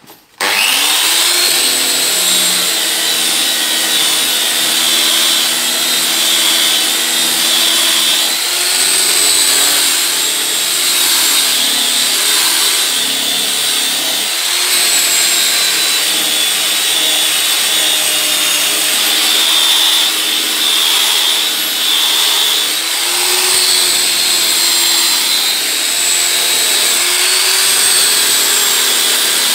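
Electric rotary car polisher switching on about half a second in and running steadily, its pad buffing polishing compound on a car door's paint. The motor's whine sags slightly in pitch now and then under load.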